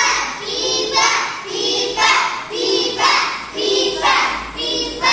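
A group of children chanting words together in unison, in a steady rhythm of about two a second.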